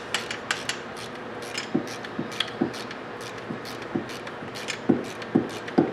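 A ratchet wrench clicking in short strokes while loosening a bolt: sharp irregular clicks, roughly two a second, some with a brief metallic ring.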